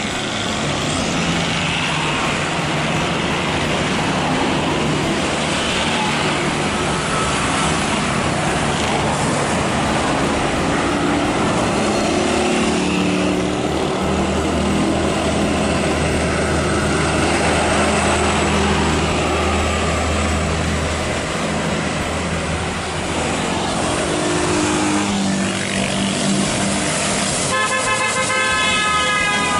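Heavy diesel trucks driving past on the highway, engines running steadily. About two seconds before the end, a truck horn sounds for about two seconds.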